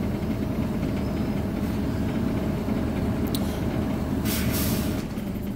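Steady engine and road rumble heard from inside a Scania OmniCity double-decker bus, with a click and then a short hiss of compressed air about four seconds in.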